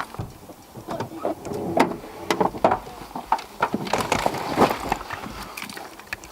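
Irregular knocks, clicks and rustling, busiest in the middle stretch.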